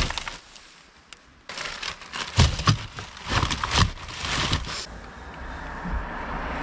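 Footsteps walking over rough ground, an uneven two or three steps a second, starting about a second and a half in. In the last couple of seconds the steps give way to a steady rushing noise that slowly grows louder.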